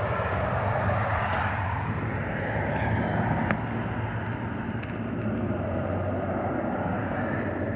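Steady rush of road traffic, the tyre and engine noise of passing cars. A couple of light clicks come about three and a half and five seconds in.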